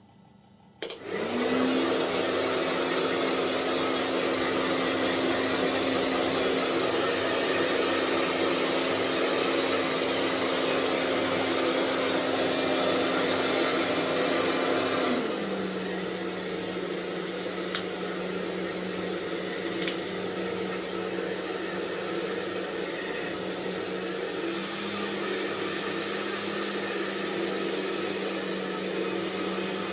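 Hair dryer switched on about a second in and running steadily, blowing on wet fidget toys. About halfway through its hum drops to a lower, quieter tone.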